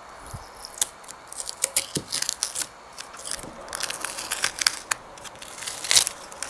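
A knife blade scraping at a hand grain mill's shaft in a few sharp scratches, then crumpled paper rubbed against the ridged cast-iron grinding burr inside the mill housing, crackling and scraping in quick, irregular bursts that get denser and louder toward the end.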